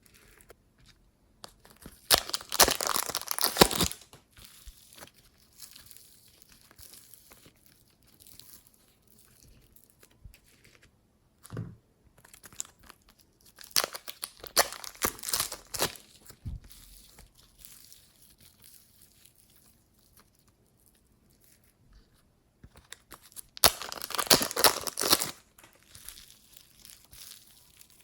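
Slime being squeezed and stretched by hand, crackling and popping as trapped air escapes. It comes in three loud bursts of about two seconds each, with faint scattered clicks in between.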